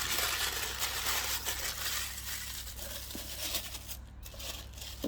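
Rustling and tearing of paper and cardboard packaging, densest in the first couple of seconds and then thinning to a few small clicks and handling noises.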